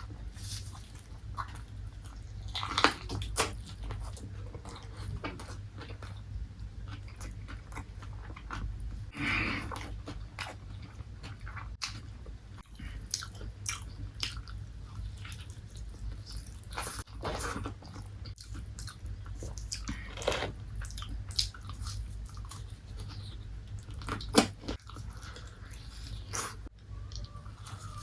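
Close-miked chewing and biting into crispy KFC fried chicken: irregular crunches and crackles with wet mouth sounds, the sharpest bites about 3 seconds in and near 24 seconds in, over a steady low hum.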